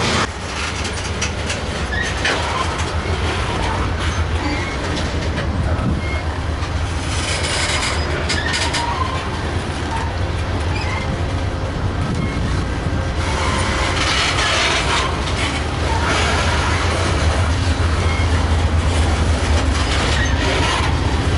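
Coal train's gondola cars rolling past close by: a steady low rumble of steel wheels on rail, with louder stretches of wheel and car noise about a third of the way in, past the middle and near the end.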